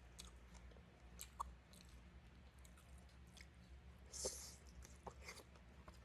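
Faint chewing and small mouth clicks of someone eating beef noodle soup close to the microphone, with a brief, slightly louder hissy mouth noise about four seconds in.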